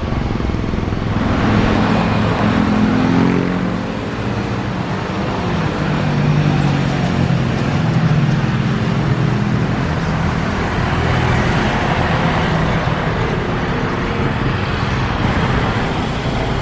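Four Rolls-Royce Trent 500 turbofans of an Airbus A340-600 running loud and steady as the airliner rolls along the runway, a jet rumble with a low wavering drone.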